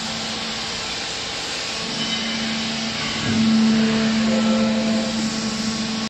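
Hydraulic baling machinery running: a steady low hum over a constant hiss, growing louder about three seconds in.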